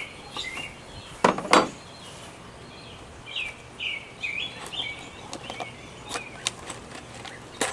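Birds chirping in short repeated notes, with two sharp knocks in quick succession about a second and a half in and a few lighter clicks later.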